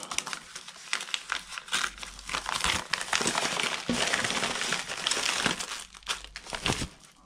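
Padded paper mailing envelope crinkling and rustling as it is torn open along its tear strip and handled, a dense run of irregular crackles.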